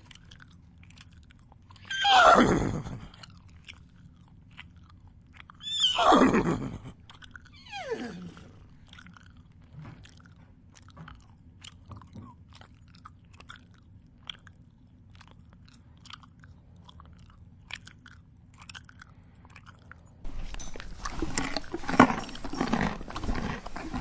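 A horse whinnies twice, each call sweeping down in pitch over about a second, followed by a fainter third call. In between comes crunchy chewing of feed. About twenty seconds in, a louder, rougher stretch of sound begins.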